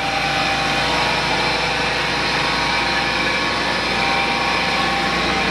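1994 Ford F150's fuel-injected 5.0 V8 idling steadily just after a cold start, at the slightly raised idle it holds while cold.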